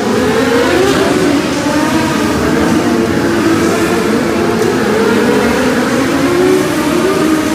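Loud motorsport engines revving, their pitch swinging up and down continuously as the vehicles are driven hard on the dirt track.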